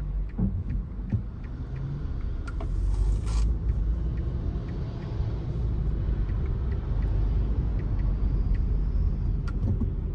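A car's engine and tyre rumble, heard from inside the cabin as it pulls away in traffic and drives along; the rumble grows a little louder a couple of seconds in as the car picks up speed.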